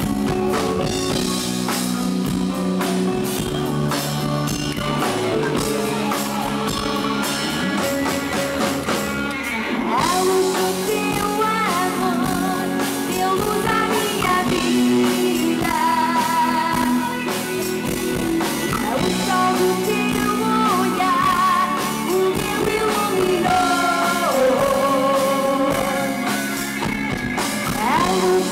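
Live Portuguese popular music from a band with drum kit and guitar. A woman's lead vocal, singing with vibrato, comes in about a third of the way through.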